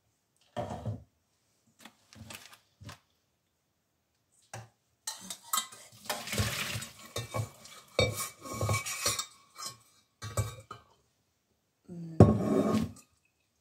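A stainless steel pot and its lid clank as cooked spaghetti is drained into a sieve. In the middle comes a few seconds of water pouring, with metal clinks, and near the end there is one loud clank of the pot.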